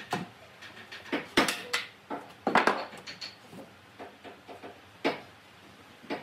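Sharp knocks and clatters of wooden pieces and hard objects being handled and set down on a workbench: one at the start, several in quick succession over the next three seconds, and one more about five seconds in.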